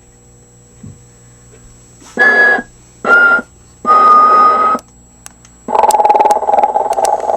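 Recorded snoring played through the small built-in speaker of a Telco animated sleeping Santa figure. There are three short snores, each with a whistle that sits a little lower in pitch than the last, then a longer buzzing snore about six seconds in.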